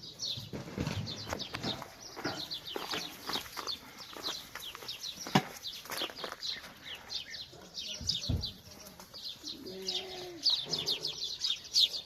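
A flock of small birds chirping busily, many quick falling chirps overlapping, with scattered knocks and rustles and a short low call about ten seconds in.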